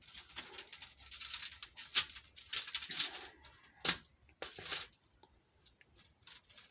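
Kitchen knife sawing and pressing through plant-based chickenless tenders: a run of rasping cutting strokes with two sharp knocks, then a few faint ticks for the last couple of seconds.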